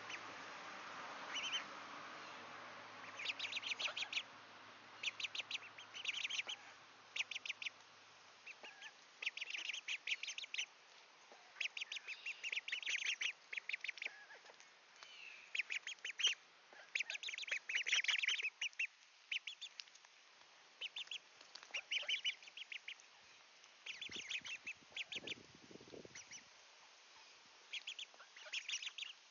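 Half-grown mallard ducklings calling in short bursts of rapid peeping, one burst after another throughout.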